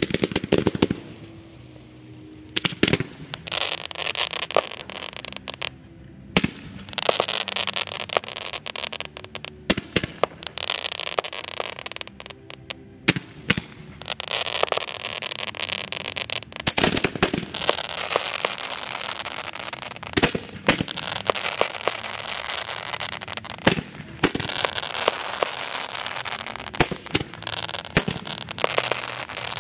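Ground-level fireworks going off. Spark fountains hiss and crackle in stretches of a few seconds, with sharp bangs every few seconds throughout.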